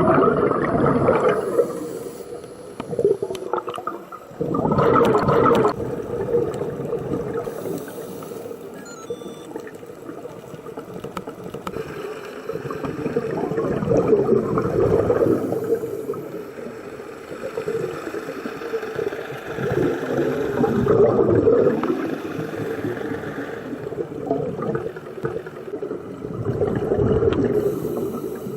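Underwater scuba-diving sound: a diver's exhaled bubbles gurgling and rushing in surges about every six to seven seconds, over a steady low hum.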